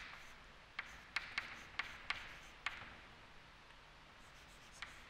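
Chalk writing on a blackboard: a quick run of sharp chalk taps with faint scratching between them over the first three seconds, then one more tap near the end.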